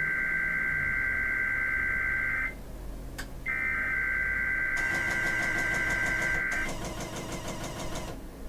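Emergency Alert System SAME header data bursts: two buzzy, warbling digital tone bursts of about three seconds each, a second apart, the coded header announcing the required weekly test. Partway through the second burst a harsher, rougher noise joins in and runs on to near the end.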